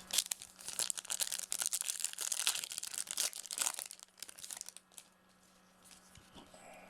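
Crinkling and rustling of a foil trading-card pack wrapper and cards being handled, dense for about four seconds and then dropping to faint, sparse handling noise.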